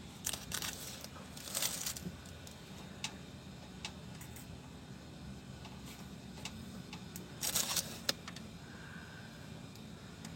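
Scattered light clicks and a few brief rustling or scraping noises, over a faint steady low hum.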